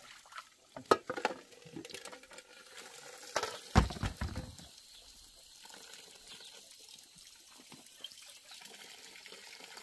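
Rice being rinsed in metal bowls at an outdoor tap over a concrete basin: water splashing and running, with clinks and knocks of the metal bowls and a heavy thud about four seconds in, then a faint steady trickle.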